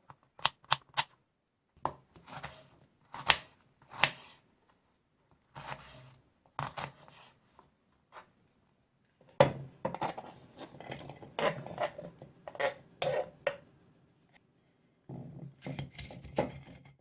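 Knife cutting ginger, onion and garlic on a cutting board: a run of separate chops and knocks, with short silent breaks between them.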